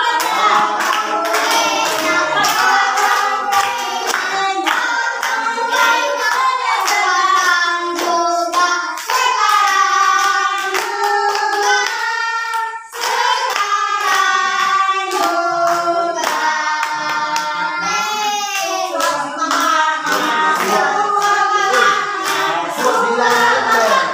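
A group of adults and children singing together, with hands clapping in a steady beat throughout. The singing breaks off briefly about halfway through, then goes on.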